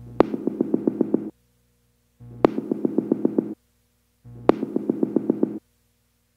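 Electronic synthesizer music: short phrases of rapid pulsing notes, about seven a second, each opening with a sharp click, repeating about every two seconds with brief silences between.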